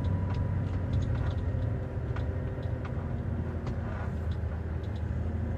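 A truck's diesel engine running steadily at low speed, heard from inside the cab, with a few faint light clicks.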